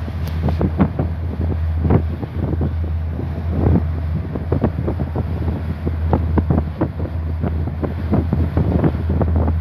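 Wind buffeting the microphone in irregular gusts on the deck of a ship under way, over a steady low drone and the rush of water along the hull.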